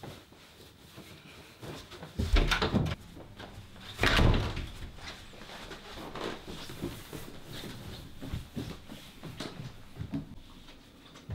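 A door being handled, with two loud knocks about two and four seconds in, then steady footsteps going down wooden stairs.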